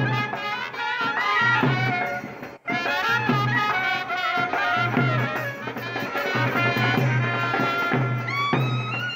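Background music: a wavering melodic lead over a repeating bass pulse, with a brief break about two and a half seconds in.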